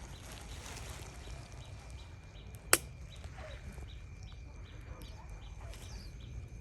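Quiet background with a faint, even high ticking about two to three times a second, and one sharp click a little before the middle.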